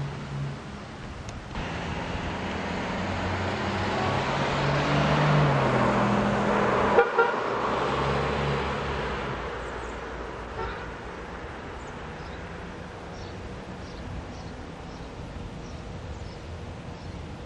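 City street traffic: a motor vehicle passes, building over several seconds and then fading, with a brief toot about seven seconds in. After that, a lower steady traffic hum continues.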